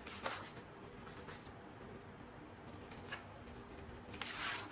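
Paper workbook pages being flipped by hand: a few soft, short rustles, with a longer swish of a page turning near the end.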